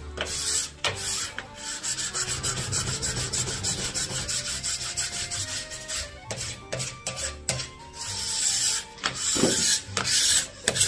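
Plastic wax scraper drawn again and again along a snowboard base, a quick series of rasping strokes stripping off the hardened wax. Faint background music underneath.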